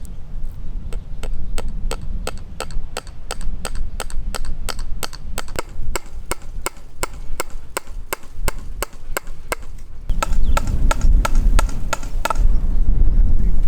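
A hammer striking at a wooden fence pole in a steady run of blows, about three a second, driving in the new pole or the staples that hold the fence wire. About ten seconds in, a louder low rumble comes in, and a few brighter strikes follow before the hammering stops.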